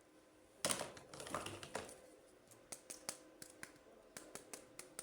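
Hands handling plastic toys and packaging: about half a second in, a short clatter of clicks and rustling, then light, sharp plastic clicks and taps a few times a second.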